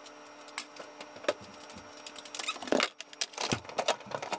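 Scattered light clicks, taps and handling noises of someone working around a kitchen counter, over a faint steady hum.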